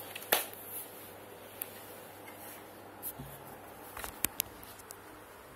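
Scattered light knocks and sharp clicks of a rice grinder's plastic housing being handled and moved aside, with a brief knock just after the start and a few quick clicks about four seconds in.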